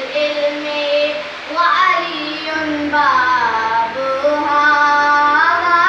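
A boy singing a manqabat (an Urdu devotional song in praise of Imam Ali) solo. He holds long notes that bend and slide between pitches.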